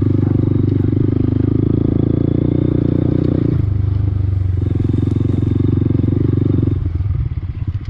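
Honda Grom's small single-cylinder four-stroke engine running under steady throttle while riding. The engine note drops for about a second around the middle, picks up again, then falls back toward idle near the end as the bike slows.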